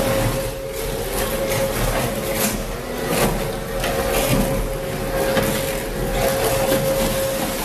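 Industrial shredder running, with a steady motor hum and repeated cracking and crunching as material breaks up in the cutters.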